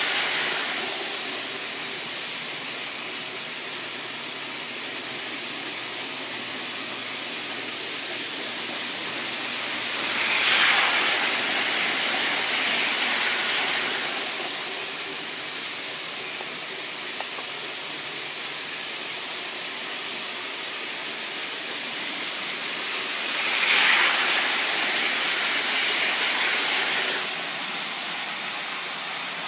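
Lionel O-gauge model train rolling around its track, a steady hiss of wheels on the rails that swells twice for a few seconds as the train passes close by. The sound drops suddenly near the end.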